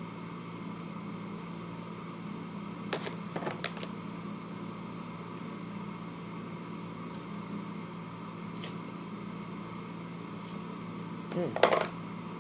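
A person eating prawns: a few brief mouth and chewing clicks over a steady electrical room hum, then an appreciative 'mm' near the end.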